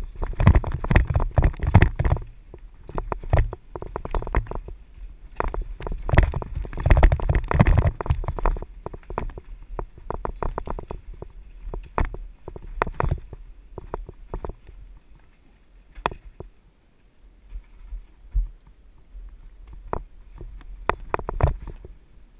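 Mountain bike rattling and clattering down a rough dirt trail, with a low rumble. Dense, irregular knocks for the first nine seconds or so, then sparser single sharp knocks.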